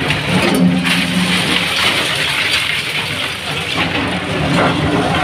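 Demolition of a building: a heavy machine's engine runs while the structure is knocked down with a continuous rumble and clatter of falling debris.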